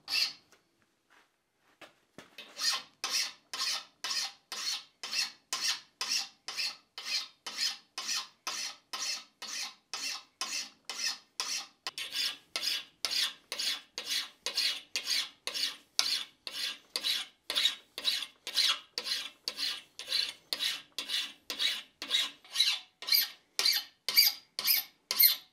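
Flat hand file rasping across the edge of a freshly water-hardened Atlantic 33 (Flutagon) steel chisel clamped in a bench vise, in steady even strokes about two a second. The filing starts about two seconds in, after a short pause.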